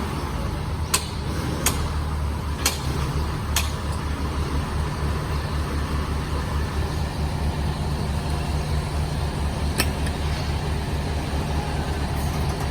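Concrete pump's engine running steadily with a low hum, with four sharp clicks in the first few seconds and another about ten seconds in.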